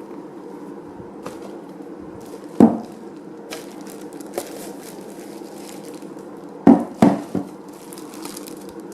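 Packaging and plastic parts being handled and set down, with a sharp knock about two and a half seconds in and three quick knocks near the end, over a steady low hum.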